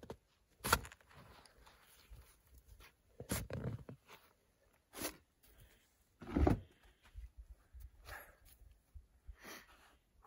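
Snow shovel strokes in deep snow: about six separate crunching scrapes and thuds, one every second or two, the loudest about six seconds in.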